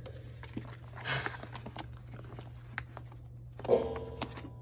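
Photocards and plastic binder sleeves being handled: a few small clicks and a brief rustle about a second in. A short hummed vocal sound comes near the end.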